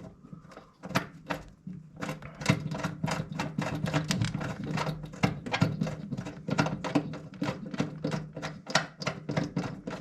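Rapid ratcheting clicks, about five a second, start about two seconds in as a bolt on the furnace's inducer motor mount is run in, over a steady low hum.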